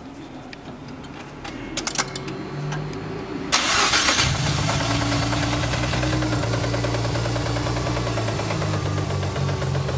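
Mazda RX-7 FD3S's 13B-REW twin-rotor rotary engine starting about three and a half seconds in, then running steadily at idle with a knock. The knock is the sign of a broken eccentric shaft, which teardown confirmed.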